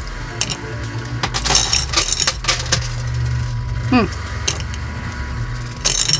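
Coin pusher machine in play: quarters dropping and clinking against the coins on the playfield, over a steady low hum. A short falling tone sounds about four seconds in.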